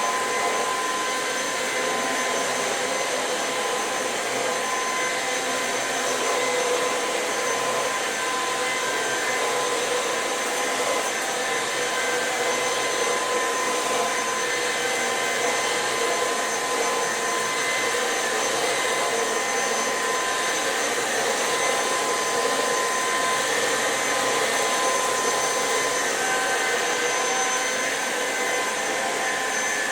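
Electrolux Pure F9 cordless stick vacuum running at full power while vacuuming, a steady motor whine with a constant high tone over the suction noise.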